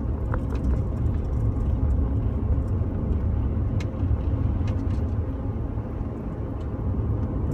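Road noise inside a moving car's cabin: tyres on wet pavement and the engine, a steady low rumble.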